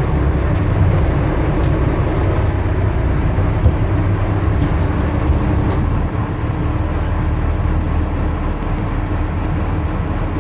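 Boat engine running steadily, a continuous low rumble with a faint hum over it.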